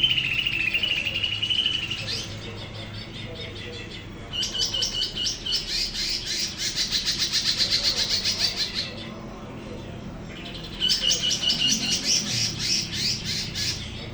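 Cucak ijo (green leafbird) singing in three long bursts, each opening on a held high whistle and running into fast, rapidly repeated chattering notes, with short pauses between bursts.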